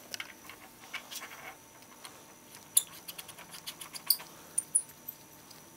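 Gloved hands handling the eyepiece parts of vintage binoculars: light scratchy rubbing, with a few sharp little clicks of the parts touching, the loudest from about the middle on.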